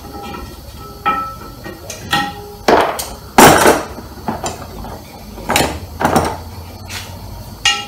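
Sharp metallic clinks and knocks, about seven separate ones, some with a brief ring, the loudest about three and a half seconds in: wheel-balancing weights rattled in the plastic tray of a wheel balancer and tapped onto the wheel rim, with a low steady hum of the shop behind.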